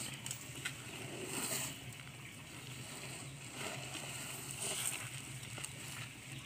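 Faint rustling and scuffing of a baby elephant shifting and getting up in dry straw and dirt, a few soft scrapes over a steady low hum.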